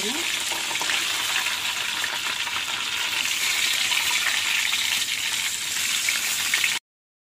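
Whole fish shallow-frying in hot oil in a wok, a steady sizzle with fine crackles, while they are being turned over with a wooden spatula once one side is cooked. The sizzle cuts off abruptly near the end.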